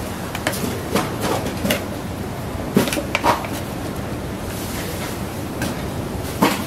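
Metal tongs clacking against a frying pan and a stainless steel tray as pan-fried dumplings are moved from one to the other: a string of sharp clacks, loudest around three seconds in and near the end, over a steady background noise.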